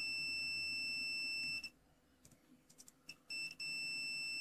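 Mastech digital multimeter's continuity beeper giving a steady high beep that stops about a second and a half in, then sounds again after a pause, briefly broken, for over a second near the end. The beep shows continuity between the probed wire and the metal part of the soldering iron handle, marking it as the ESD protection wire.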